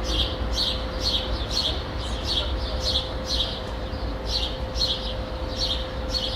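A small bird chirping over and over, about two short chirps a second, over a steady hum and the low rumble of distant traffic.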